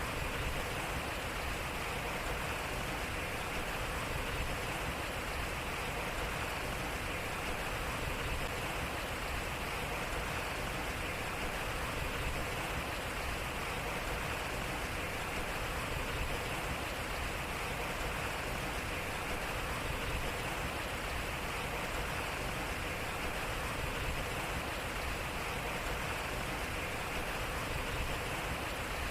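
Water splashing and flowing steadily over a turning wooden water wheel, an even rushing with no distinct knocks.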